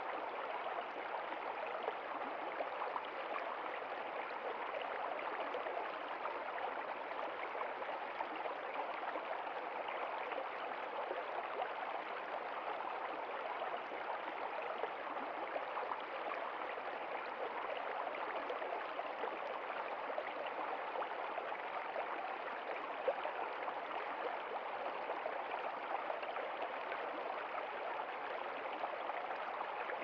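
Shallow stream running over rocks: a steady, even rush of water with no pauses or changes.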